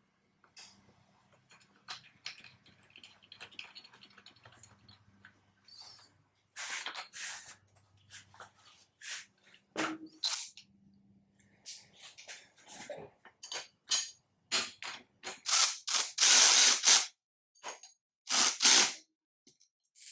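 Ratchet wrench run down on the clamp nuts, clicking in short runs that grow louder and denser in the second half.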